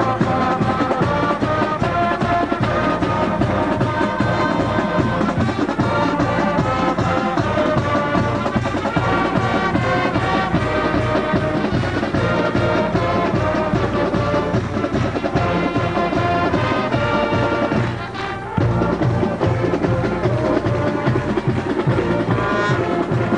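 High school marching band playing, brass over a steady drum beat. There is a brief drop in level about eighteen seconds in.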